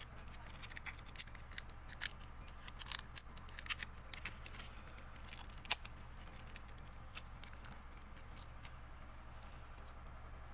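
Thin clear plastic wrapping crinkling and crackling as a new piston pin is unwrapped by hand: a run of faint irregular crackles and clicks that thins out after about six seconds, over a steady low hum.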